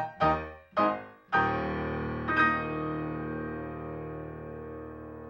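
Solo piano accompaniment coming to its end: a couple of quick struck chords, then a final chord about a second and a half in, held and slowly fading.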